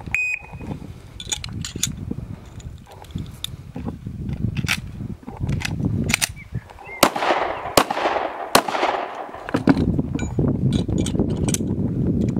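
A short electronic shot-timer beep, then the clicking and clacking of Glock pistol parts being fitted together: slides, barrels and springs going onto frames, and magazines seating. About seven to nine seconds in come three sharp pistol shots, each ringing on afterwards.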